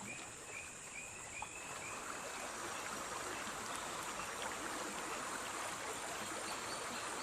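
Rainforest stream water running steadily, the rush growing slightly about two seconds in, over a steady high insect whine; a repeated high chirp sounds several times a second and stops about two seconds in.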